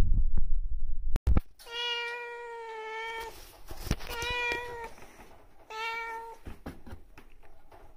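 A black cat meowing three times: one long drawn-out meow, then two shorter ones. Before the first meow, a loud low rumble and a couple of knocks.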